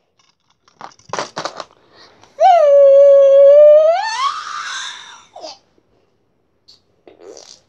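A boy's voice letting out one long, loud, held "aaah" of about a second and a half at a steady pitch, rising at the end and breaking into a breathy, laughing trail-off. A few short breathy bursts come just before it.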